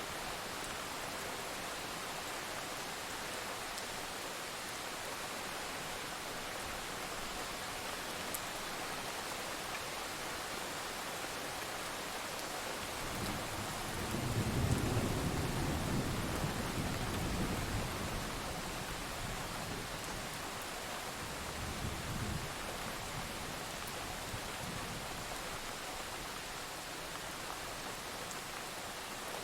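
Steady rain falling, with a roll of thunder rumbling low about halfway through, loudest briefly then fading over several seconds, and a smaller rumble shortly after.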